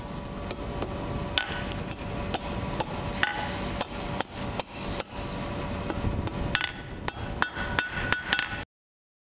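Blacksmith's hammer striking a hot round steel bar on the anvil at about two blows a second, curling the bar's tapered end into a small snub-end scroll. Some blows ring sharply, over a steady low rumble. The sound cuts off abruptly near the end.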